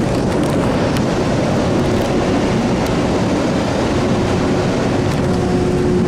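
CRRC-built MBTA Orange Line subway car running at speed, heard from inside: a steady loud rushing roar of wheels on rail and running gear, passing through a short underground section. A steady low hum joins about two seconds in, with a fainter higher tone near the end.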